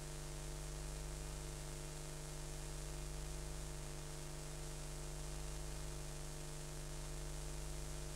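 Steady electrical hum with a constant hiss, the noise floor of an old film transfer. It does not change at all as the aircraft flies past, and no engine is heard.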